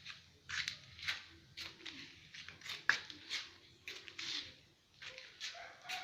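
Irregular scraping strokes, about two a second, from cleaning the dirty, long-neglected engine of an old Daeheung DLG 3500 generator.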